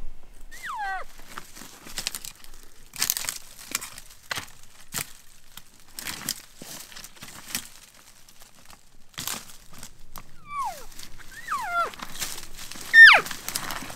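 Elk calling: four short, high whistled calls, each sliding steeply downward. One comes just after the start, and three come close together near the end, the last the loudest. Rustling and handling crackle run underneath.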